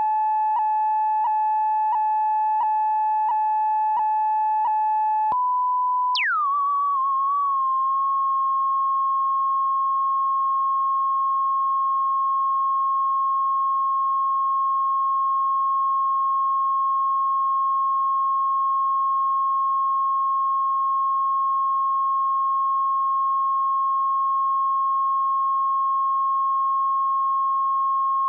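Test tone that goes with the colour bars on the tape. It starts as a steady tone ticking about every two-thirds of a second. About five seconds in it jumps to a slightly higher tone, then glides sharply down from a high pitch, wavers briefly and settles into one steady whistle-like tone.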